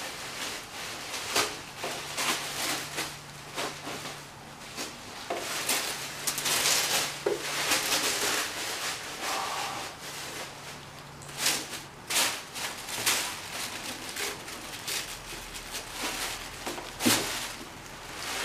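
Plastic wrap and bubble wrap rustling and crinkling as they are pulled away by hand, in irregular bursts with a few sharp crackles.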